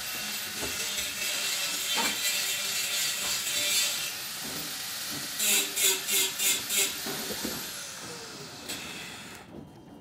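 A high-speed power tool's motor running with a strong hiss. It spins up just before the start and winds down with a falling whine near the end, with five quick louder pulses about halfway through.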